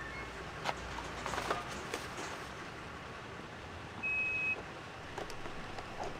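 Steady background noise of a car, with a few light clicks and one short high electronic beep, about half a second long, about four seconds in.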